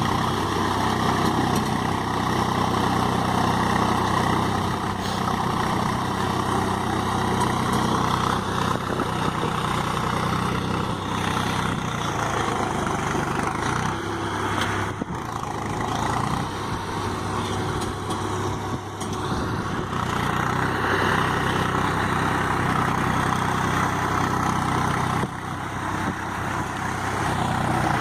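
Diesel farm tractor engine running steadily while pulling a cultivator through a muddy field.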